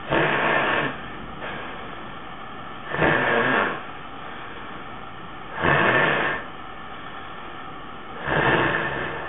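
Loud, harsh snoring breaths of a sleeping man with sleep apnea, four of them about two and a half seconds apart, over a steady background hiss.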